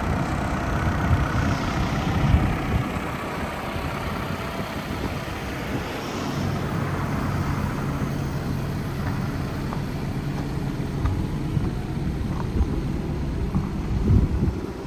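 Wind buffeting the microphone in uneven low gusts, with a steady low engine hum underneath through the middle stretch.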